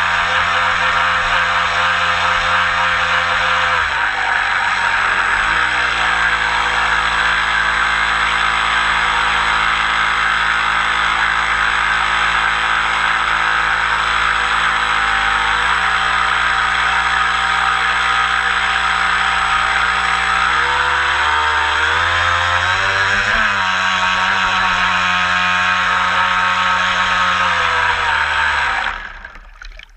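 A homemade plywood RC boat's motor runs steadily up close. Its pitch drops and rises again twice as the throttle changes, then the sound fades out near the end.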